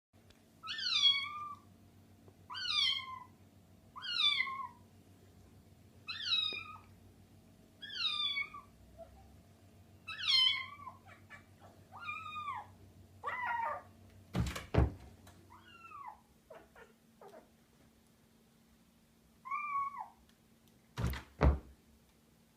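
A cat meowing over and over, falling in pitch on each call, about one meow every two seconds, then a few more spaced out. Two pairs of sharp thuds, about 14 seconds in and near the end, from the cat failing its jump.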